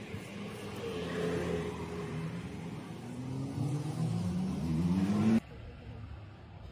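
Car engine running and revving, its pitch climbing over a couple of seconds, then the sound cuts off suddenly about five seconds in.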